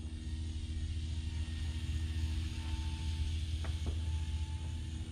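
Steady low wind rumble on the microphone, with the faint thin whine of the ZOHD Drift's small electric motor and propeller flying overhead coming in about two and a half seconds in.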